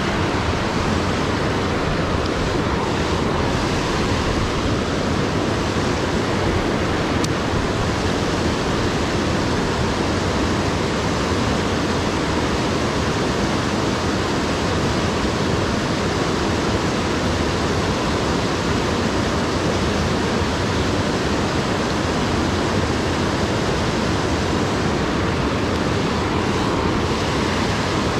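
Creek water rushing, a steady wash of noise.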